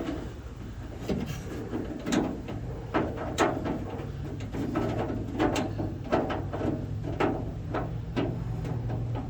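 Irregular clicks and knocks of a replacement door lock cylinder being worked into a pickup truck door, its arm being fitted into the slot of the lock linkage inside the door. A low steady hum sits underneath.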